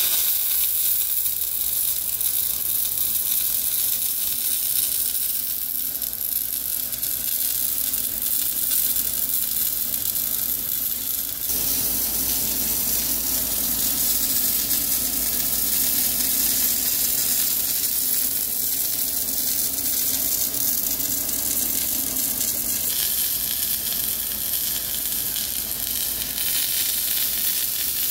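Wire-fed welding arc crackling and sizzling steadily as a metal-cored weld is run around a steel flange on a cylinder barrel. The crackle changes character slightly twice.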